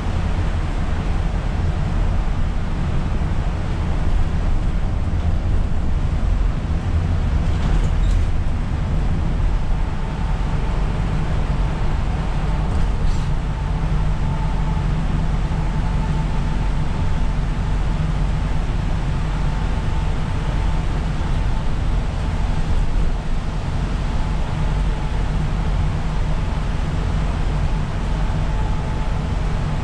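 Isuzu Erga city bus running at speed on a wet road, heard from the driver's seat: a steady low engine drone with tyre hiss, and a faint steady whine joining about ten seconds in.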